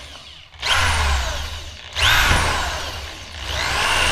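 Power drill drilling out a broken rivet in an aluminum jon boat, run in three bursts, the motor's pitch winding up and down with each trigger pull.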